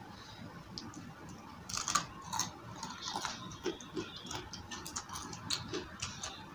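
Close-miked chewing of crunchy battered fried food, with irregular crackly clicks that start about a second and a half in.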